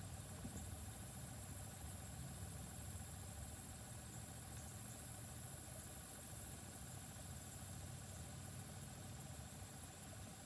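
Boat motor running steadily, a low even hum with a constant high hiss over it.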